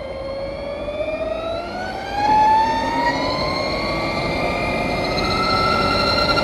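2020 Harley-Davidson LiveWire's electric drivetrain whining under acceleration. The whine rises steadily in pitch as speed climbs. It sits over wind and tyre noise that grows louder about two seconds in.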